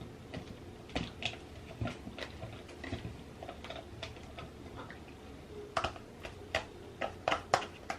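Irregular light clicks and taps of a tool against a plastic cup as bleach powder and developer are stirred together, growing louder and quicker about six seconds in.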